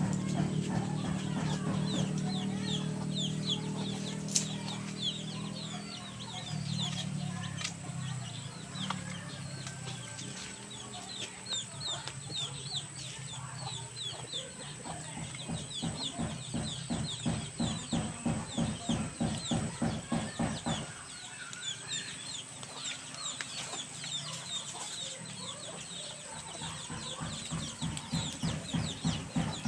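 Chicken clucking in runs of quick, evenly spaced clucks, with many short high chirps throughout.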